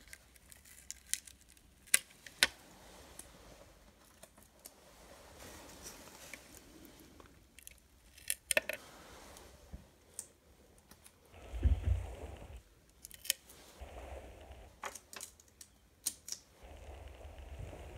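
Masking tape being peeled off a freshly airbrushed HO-scale model locomotive shell: scattered light clicks and taps, with a few short stretches of rustling.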